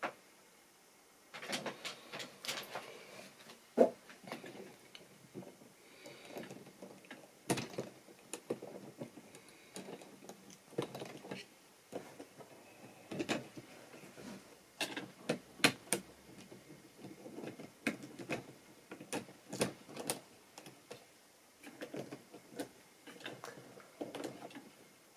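Model railway wagons being handled on the track by hand: a long run of irregular plastic clicks, knocks and light rattles, with one sharper knock about four seconds in.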